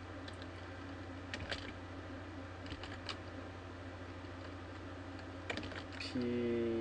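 Computer keyboard being typed on slowly: a few scattered single keystrokes, over a steady low hum.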